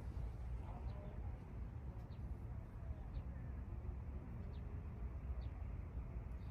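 Faint outdoor ambience: a steady low rumble with short, high chirps about once a second.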